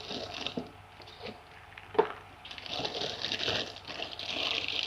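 Packaging being handled during an unboxing: a sharp tap about two seconds in, then steady rustling through the second half.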